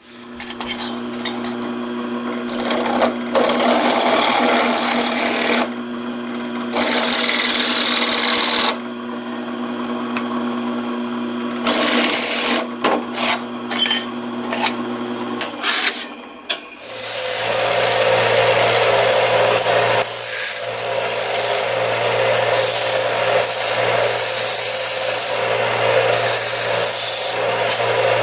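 Small electric power tool running as it cuts a hole through a thin metal tab, with a steady motor hum and grinding. It stops briefly about two-thirds of the way through, then starts again at a slightly different pitch.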